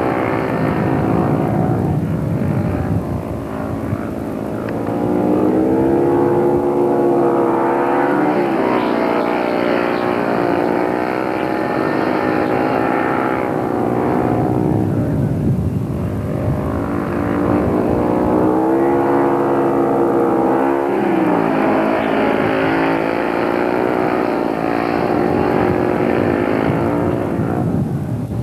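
Speedway motorcycles' single-cylinder engines racing, their note falling and climbing again several times over the stretch. The pitch dips about 3, 8, 15 and 21 seconds in.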